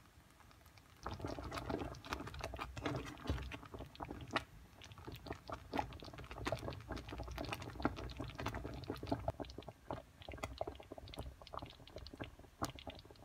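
Ume plums and syrup bubbling and popping in a pot as jam cooks, with a spatula stirring and squashing the soft fruit; a dense run of small crackling pops starts suddenly about a second in.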